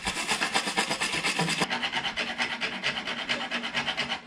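Thread file rasping back and forth over the damaged end of a U-bolt's thread in fast, even strokes, about ten a second. The file is cleaning up the burred thread so the nut can be run off.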